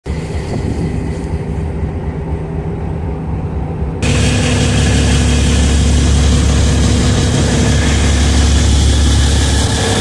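A steady engine hum. About four seconds in it jumps suddenly louder into a heavy low rumble with a rushing noise over it.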